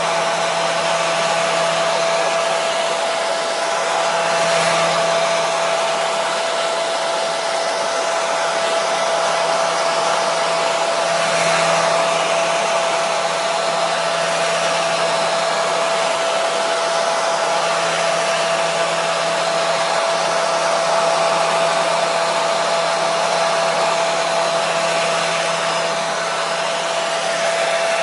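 Hair dryer running steadily: a continuous hiss of blown air with a steady motor whine, used as white noise to soothe a baby to sleep.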